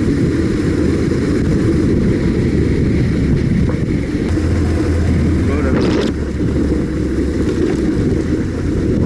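BMW R1150GS boxer-twin motorcycle running steadily while riding, a loud low rumble with wind noise on the microphone.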